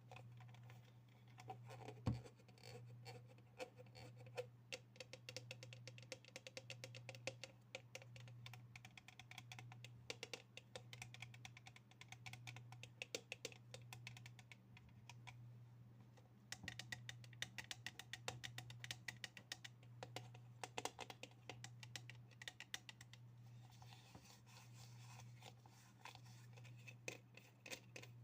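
Fingers tapping rapidly on assorted small objects close to the microphone. The taps come in quick runs, some with a short ringing pitch, and there is one louder knock about two seconds in. A steady low hum sits underneath.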